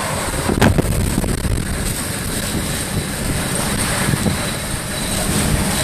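Hurricane-force wind in a Category 5 hurricane's eyewall, sustained at about 120 mph, blowing hard and gusting against the microphone. A sharp knock comes about half a second in.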